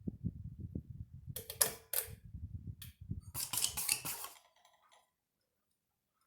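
Ceiling fan pull-chain speed switch clicking several times, with a rattling run of clicks about three and a half seconds in, over a low uneven rumble from the fan. The sound cuts off abruptly about five seconds in.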